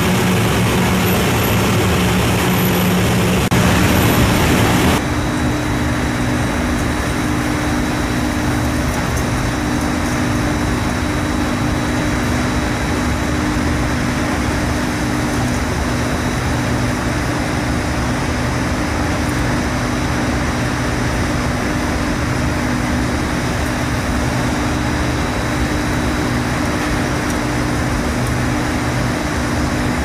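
Twin-motor industrial wet and dry vacuum cleaner running with steady suction through its hose, a loud even rush with a motor hum. About five seconds in the hum shifts to a higher pitch and stays steady.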